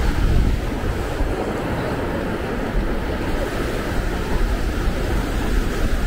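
Ocean surf breaking and washing up the shore in a steady wash, with wind on the microphone.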